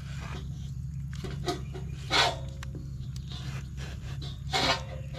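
Two short animal calls, about two seconds and four and a half seconds in, over a steady low hum.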